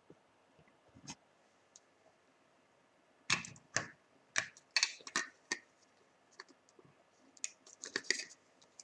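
Plastic clicks and knocks of a Predalien action figure being handled and fitted onto its stand. The knocks come in scattered bunches: a single one about a second in, a flurry of them from about three to five and a half seconds, and more near the end.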